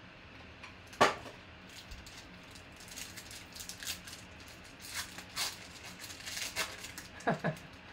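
Foil wrapper of a 2020 Panini Legacy football card pack being crinkled and torn open by hand. There is one sharp crack about a second in, a run of crackly rustling in the middle, and two quick sharp rips near the end.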